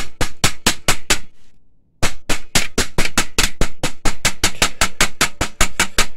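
Small hammer rapidly tapping a metal part of an Epson 1400-based printer chassis, bending it out of the way of the flat table: quick, even metallic strikes, about six a second, with a short break about a second and a half in.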